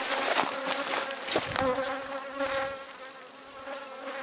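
Honeybees buzzing around a hive housing a hived swarm, the colony active and working. A steady, low-pitched hum that fades somewhat past the middle and picks up again near the end.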